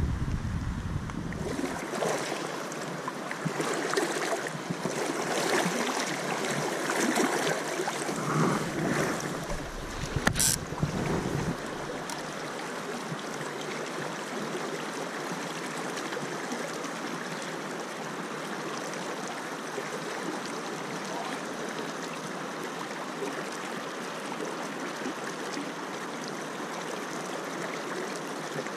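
Steady rush of flowing river water. The first ten seconds or so are busier and uneven, with wind buffeting the microphone at the start and a sharp click about ten seconds in.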